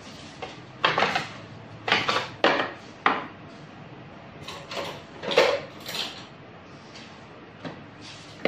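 Hand tools and parts being handled on a wooden workbench: a string of separate knocks and clatters, with metal tools clinking against each other about halfway through as they are rummaged in a metal toolbox.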